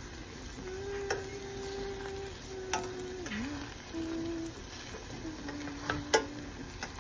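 Slotted wooden spatula stirring and scraping scrambled eggs and Spam in a stainless steel frying pan over low heat, with a sharp click each time it knocks the pan, four times, the loudest near the end.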